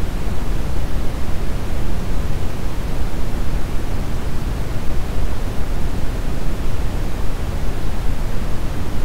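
Brown noise: a steady, even rumbling hiss with most of its weight in the low end, unchanging throughout.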